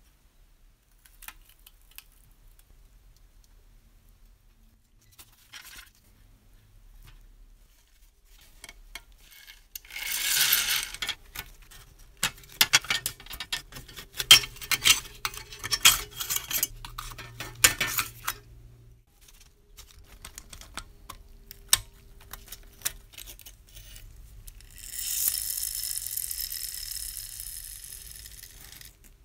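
Thin rusty tin-plate parts of a 1950s Joustra toy bus being taken apart by hand and with pliers: light metallic clicks and clinks, with a loud scraping hiss about ten seconds in and another near the end that fades out.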